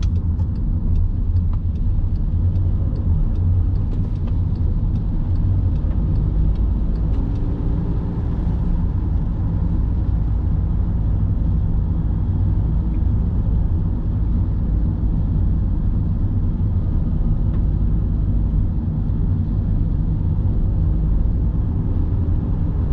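Steady low rumble of a car driving on a wet road, heard from inside the cabin. Faint light ticks come through in roughly the first eight seconds.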